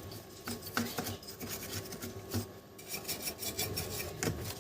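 Brush scrubbing caked dust off the inside of an amplifier in quick, irregular scraping strokes.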